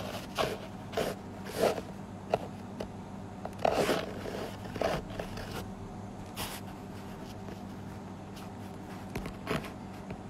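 Short scrapes, rubs and crackles of handling noise close to the microphone, coming every half second or so in the first few seconds and then more sparsely, over a steady low hum.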